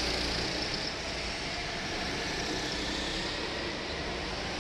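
Go-kart engines running steadily around an indoor kart track, a continuous engine drone with faint rising and falling pitch as karts accelerate and pass.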